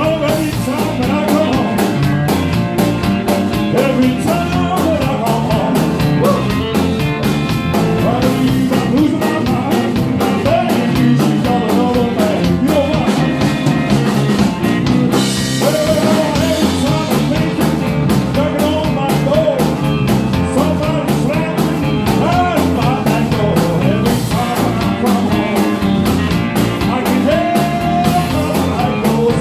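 Blues-rock band playing a song: a steady drum beat and bass under a lead line of short, bending notes.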